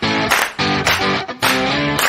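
Upbeat background music with strummed guitar chords in a steady rhythm, about three strums a second.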